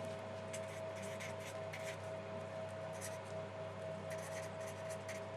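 Faint scratching of a pen drawing strokes, over a steady low hum and a thin constant tone.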